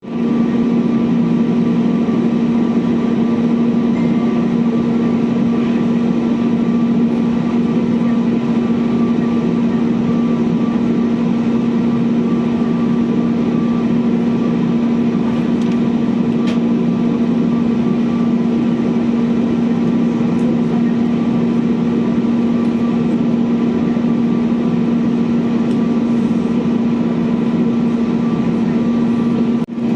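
Steady, unchanging drone of aircraft engines with a strong low hum, broken by a brief dip just before the end.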